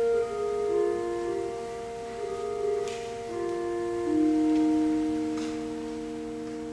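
Pipe organ playing a slow prelude: long steady chords held under a melody that moves note by note.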